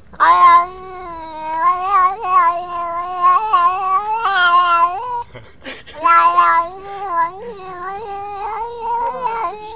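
Domestic cat yowling in long, wavering, drawn-out calls: one long stretch, a brief break about five seconds in, then another long stretch. It is the sound of an agitated cat throwing a fit.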